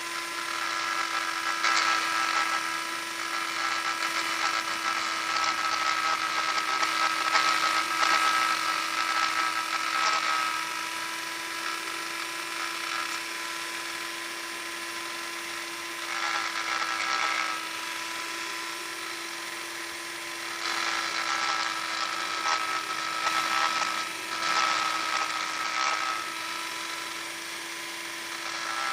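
Electric sander running with a steady motor whine, broken by three louder stretches of gritty abrasive noise as the pad works against the surface. The longest stretch is in the first third, a short one comes a little past halfway, and another comes in the last third.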